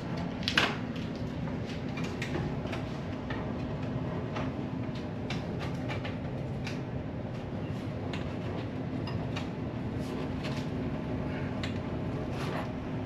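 Steady machine hum with a low droning tone, overlaid by scattered light clicks and taps of handling, the sharpest about half a second in.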